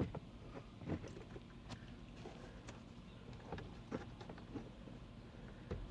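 Light, irregular clicks and knocks of the Honda Odyssey's plastic glove box parts being handled, as the glove box's slow-release piston damper is reattached.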